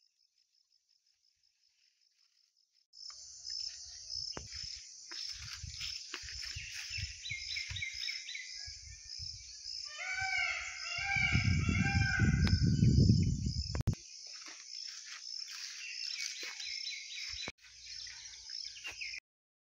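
Insects chirring in a steady fast pulse, with birds calling over them, including a short run of repeated rising-and-falling notes about ten seconds in. Low rumbling noise on the microphone comes and goes and is loudest from about eleven to fourteen seconds in. The sound begins abruptly about three seconds in, after near silence.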